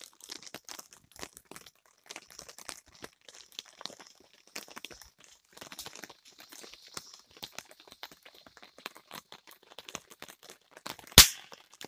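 A small firework or smoke device lit in forest moss, fizzing with irregular light crackles and pops as it smokes, then one sharp bang about eleven seconds in.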